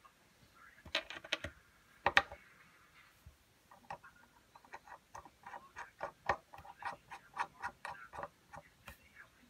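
Small sharp clicks and taps from a small black model-locomotive part with a wire lead being handled and pressed against a hard work surface. The loudest clicks come about two seconds in, followed by a run of lighter clicks at about four a second.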